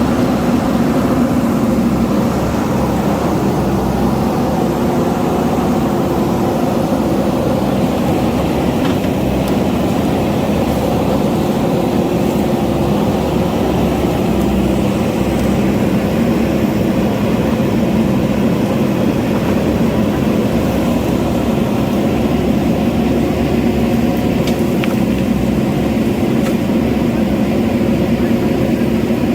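JCB backhoe loader's diesel engine running at a steady speed.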